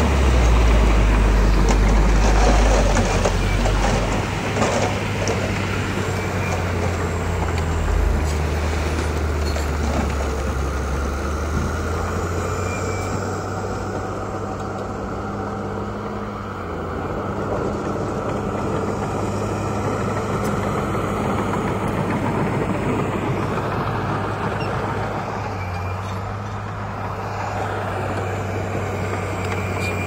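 Heavy diesel earthmoving machinery working: a bulldozer and dump trucks make a continuous low engine drone with a broad rumble, loudest in the first few seconds.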